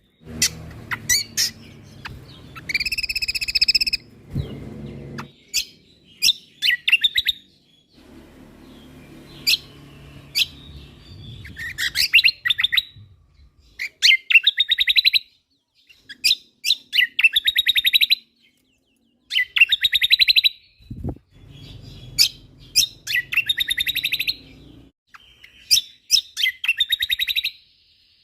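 Cucak kombo (kecial kombok) songbird in full song: repeated fast rattling trills and sharp chip notes in phrases a second or two apart, with brief silent breaks between some phrases.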